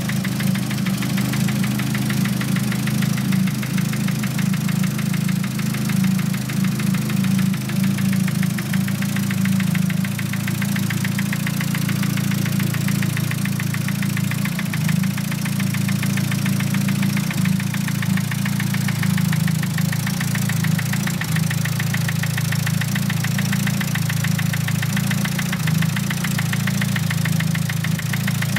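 Nissan SR20DET turbocharged four-cylinder engine idling with a rapid knocking from the cylinder head. The cause is unknown to the owner: bleeding the lifters and fitting other cams and rocker arms have not cured it.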